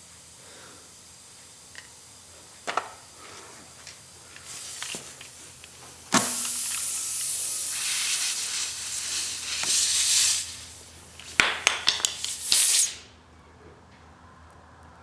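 Compressed air hissing: one long burst of about four seconds, then several short bursts, cutting off sharply. A few small knocks come before it.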